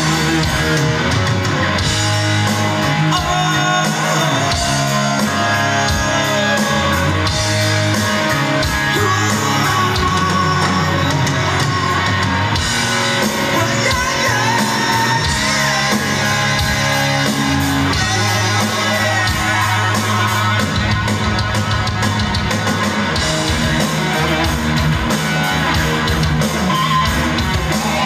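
Live rock band playing loud, with guitar and drums, recorded from within the crowd at the show.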